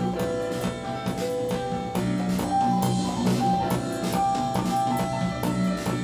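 Live band playing an instrumental passage: keyboards and guitar holding notes over a steady drum-kit beat.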